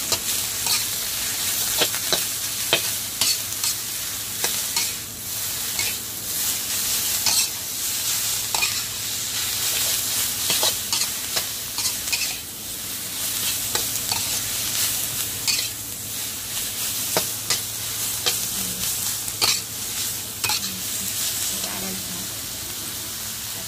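Water mimosa sizzling as it is stir-fried in a metal wok, with a steel spatula repeatedly scraping and clinking against the pan as the greens are tossed.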